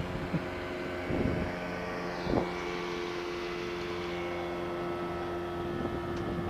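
Boat outboard motor running steadily under way, with water rushing along the hull; two short thumps about one and two and a half seconds in.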